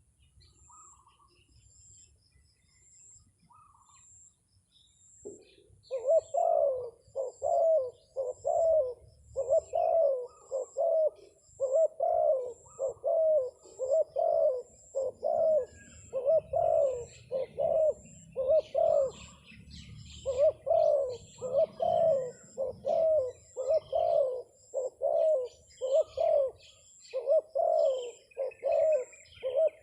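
Spotted dove (terkukur) cooing: a long, rapid run of short coos, about three every two seconds, starting about five seconds in with a brief break near the middle. Smaller birds chirp faintly behind it.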